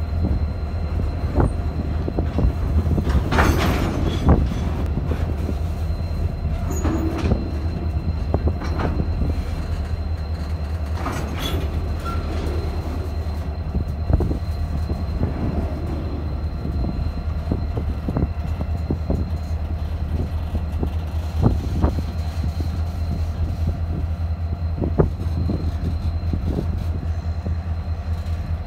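Diesel locomotives hauling a loaded grain train slowly past, with a deep steady engine rumble throughout. Over it, wheels click and knock on the track, with a brief screech from the wheels a few seconds in and again around eleven seconds.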